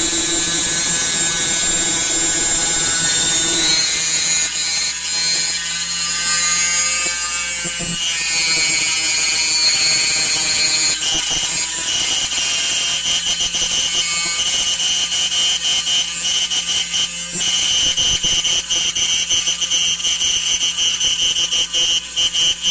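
micRo CNC router drilling a hole with a 5/32 drill bit lubricated with Tap Magic cutting fluid: a loud, steady, high-pitched cutting whine made of several tones. The tones shift in pitch about eight and eleven seconds in, and a fast chatter joins the whine in the later part.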